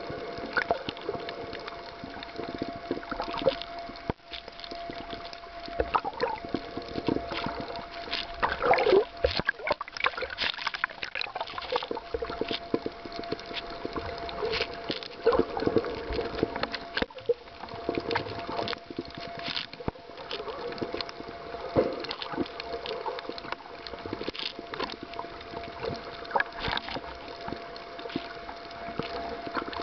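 Underwater sound picked up by a submerged camera: water moving and gurgling around it, with scattered clicks and crackles over a steady faint hum.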